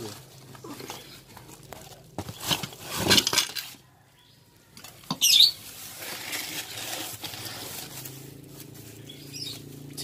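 Plastic bag crinkling and rustling as a new refrigerator compressor is unwrapped and lifted out of a cardboard box, with light knocks and scrapes of its metal housing. Short high chirps come about five seconds in.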